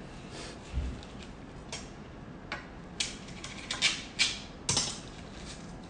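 Dry, toasted nori sheets crackling and rustling as a chef's knife cuts through them on a wooden cutting board: irregular crisp crackles, thickest about three to five seconds in. There is a soft knock on the board a little under a second in.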